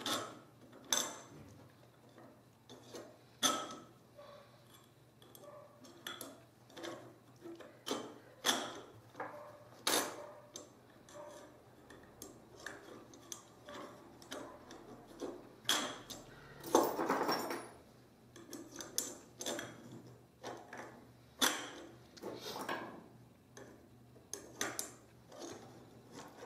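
Thin metal grill rods clinking and scraping against metal tubes as they are slid one after another through the holes of a home-made portable grill frame: irregular light metallic clicks and taps, with a longer scraping rattle a little past the middle.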